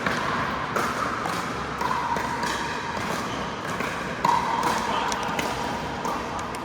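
Pickleball play: paddles hitting the hard plastic ball and the ball bouncing on the court, a series of irregular sharp pops and taps.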